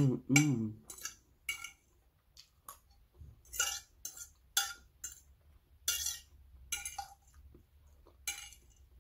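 Metal fork scraping and clinking against a ceramic plate in about fifteen short, irregular strokes, gathering up the last of the food. A brief hummed voice sounds right at the start.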